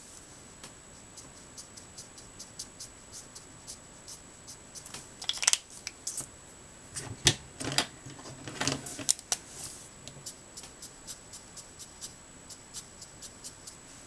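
Alcohol-based art markers being handled on a desk: a string of small clicks and taps, with louder clatters and rustles about five seconds in and again between seven and nine seconds. A faint steady high whine runs underneath.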